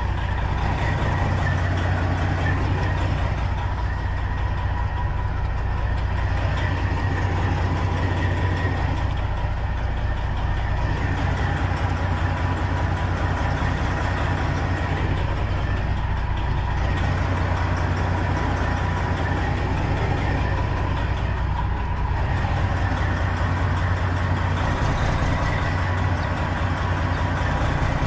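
Detroit diesel engine of a Freightliner semi truck running steadily at low revs, heard from inside the cab, with a faint steady high whine over the deep drone.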